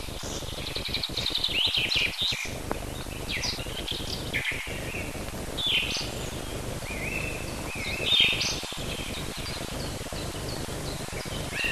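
Songbirds singing: a run of short chirps, trills and quick up-and-down whistles, one phrase after another, over a steady hiss.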